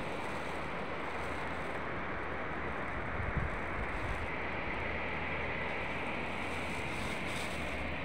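Steady wash of ocean surf breaking on a sandy beach, mixed with wind rumbling on the microphone.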